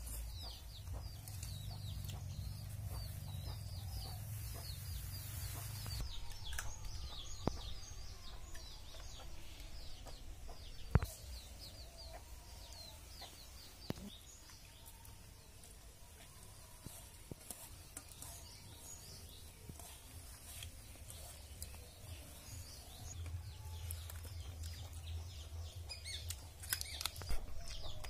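Domestic chickens clucking, with many short high chirps of birds throughout. A single sharp clink about eleven seconds in is the loudest sound, with a fainter one a few seconds later.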